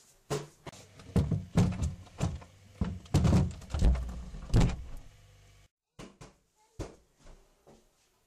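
A rapid series of knocks and thuds over a low hum, which cuts off abruptly about two-thirds of the way through; a few fainter clicks and knocks follow.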